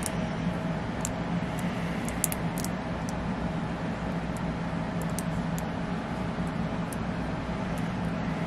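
Steady low hum, with a few faint, sharp clicks scattered through it.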